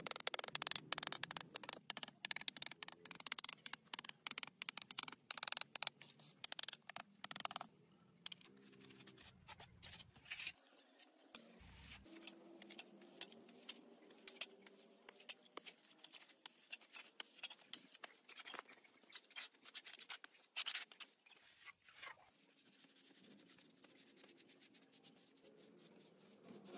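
Mason's trowel scraping and tapping wet mortar on brick in quick, scratchy strokes, thick for the first several seconds and sparser after.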